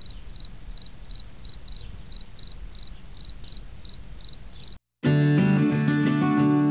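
Cricket chirping in a steady rhythm, about three short high chirps a second. It cuts off suddenly about five seconds in, and strummed acoustic guitar music starts.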